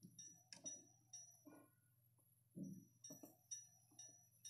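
Faint, irregular clinks and taps, several with a short high ringing tone, over a low steady hum.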